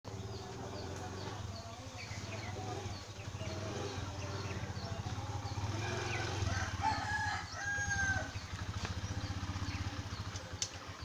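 Birds calling: short high chirps repeating through, with a longer drawn-out call a little past the middle, over a steady low hum.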